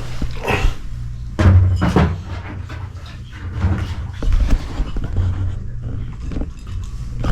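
Korean Pungsan dogs eating their meal: irregular knocks, clicks and crunching, with louder knocks about half a second, a second and a half and two seconds in.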